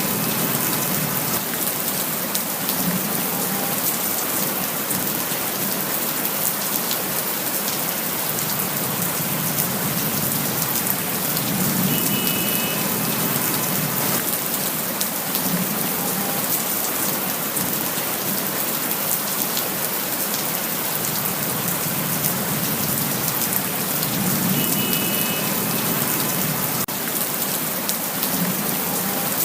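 Steady rain falling, an even, unbroken wash of drops that neither builds nor fades.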